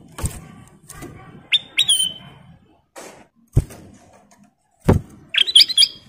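Caged ruby-throated bulbul giving a couple of short high whistles about a second and a half in and a quick chattering run of chirps near the end, among about six sharp knocks of the bird landing on the perches and bars of its bamboo cage.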